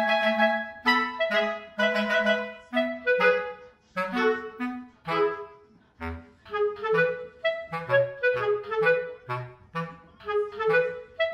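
Background music: an instrumental tune of short, separate notes over a bouncing bass line.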